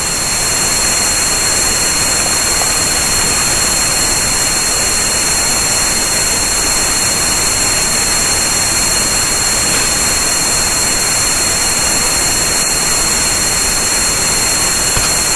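Steady synthetic white noise for tinnitus relief. A band in the upper-middle range is cut out of the hiss, and three faint, steady, high-pitched tones sit over it, one of them inside the cut-out band.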